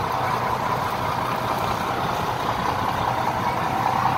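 Fishing boat's engine running steadily, a constant drone with no change in speed.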